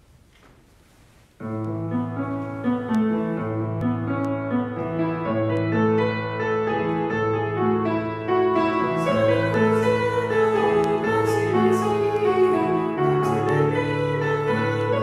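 Keyboard music begins about a second and a half in after a faint hush, with chords over held bass notes, and grows fuller about nine seconds in.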